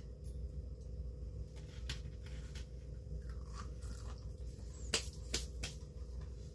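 Breaded baked chicken pieces being handled: a few soft crunches and sharp little clicks, clearest about two seconds in and around five seconds in, over a steady low hum.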